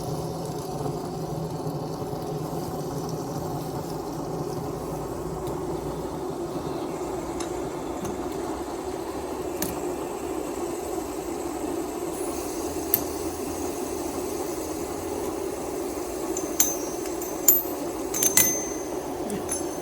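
Several fidget spinners whirring together on their bearings, a steady hum. A few sharp clicks and clinks come through, clustered near the end.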